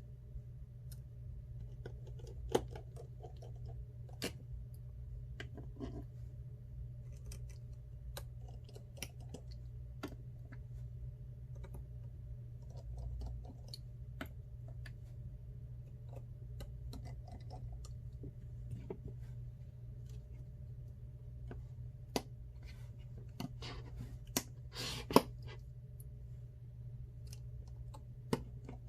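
Scattered small clicks and taps of hand repair tools on an iPhone 6 Plus's parts during a screen replacement, over a steady low hum. A few sharper clicks stand out, one about two and a half seconds in and a cluster near the end.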